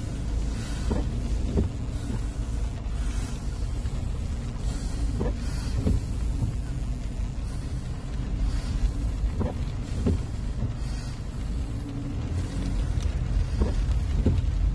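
Vehicle driving on wet, flooded streets, heard from on board: steady low engine and road rumble with tyre hiss that swells now and then. Short squeaks come in pairs about every four seconds.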